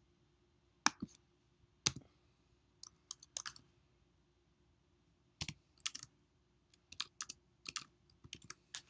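Computer keyboard keystrokes, single sharp clicks typed in small irregular clusters with pauses between, coming more often in the second half.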